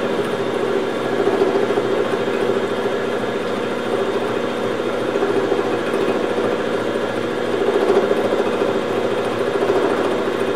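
Milling machine running steadily under power feed, its gear cutter cutting a tooth space in a spur gear with coolant flowing. The sound is an even mechanical hum made of many steady tones.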